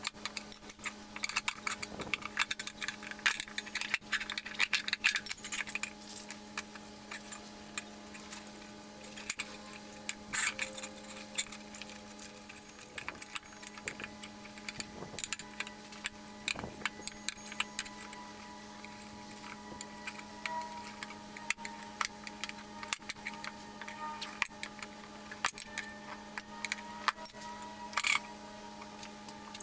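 Irregular small metallic clicks and clinks throughout, over a steady low hum.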